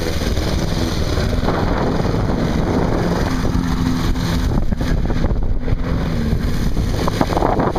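Petrol walk-behind rotary lawnmower engine running steadily at close range.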